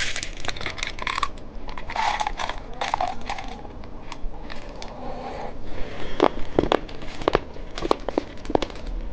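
Plastic candy packaging crinkling and rustling as it is handled, with scattered sharp clicks of a small plastic candy container.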